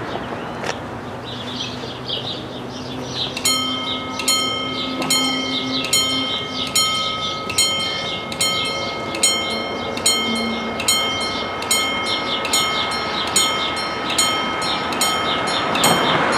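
Two electric level-crossing bells of an Italian TD96/2 crossing start ringing about three and a half seconds in: a rapid, even clanging of about two strikes a second over a steady ringing tone, the warning that the crossing is closing for an approaching train. Road traffic noise swells near the end.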